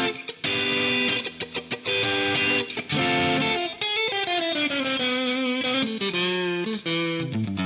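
Jackson Performer PS-2 electric guitar played through a Guitar Rig 5 amp simulation on a lightly overdriven 'dirty clean' tone. It plays short chopped chords, then from about halfway a descending line of wavering notes that settles onto a low held note at the end.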